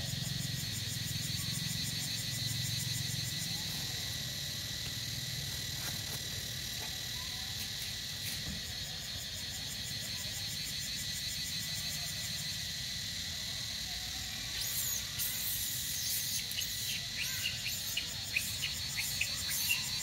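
Steady chorus of insects with a fast pulsing high buzz and a thin steady whine. From about three-quarters of the way in, a series of short, sharp, high chirps comes over it.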